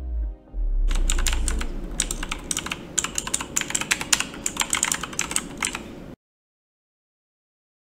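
A deep falling boom, then rapid, irregular keyboard typing clicks for about five seconds that stop suddenly: a typing sound effect, like text being typed onto the screen.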